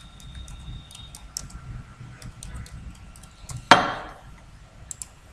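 Computer keyboard typing, scattered single key clicks. About three and a half seconds in comes one much louder knock that dies away over about half a second.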